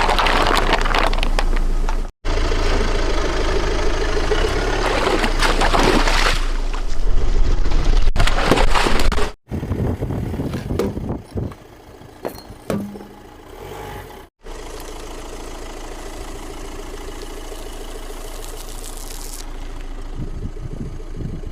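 A car's engine running while its tyres crunch and crackle over objects, in several short clips cut together; the last stretch is a steady engine hum with no crunching.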